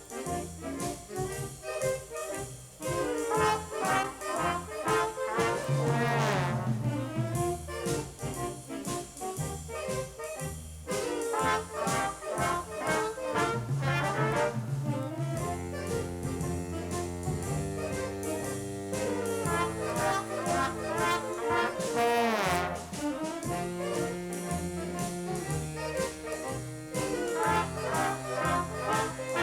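A junior high school stage band (a big-band jazz ensemble) playing, with the trombones and trumpets leading over a steady bass line. Twice the horns sweep through a long glide in pitch, about six seconds in and again a little past twenty seconds.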